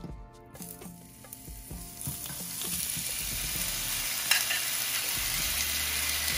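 Steak frying in a hot pan: a sizzle that starts about two seconds in and builds to a steady hiss, with one short click partway through.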